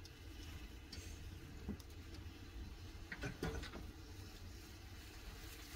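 Faint steady low rumble with a few soft clicks and taps, a small cluster of them about halfway through.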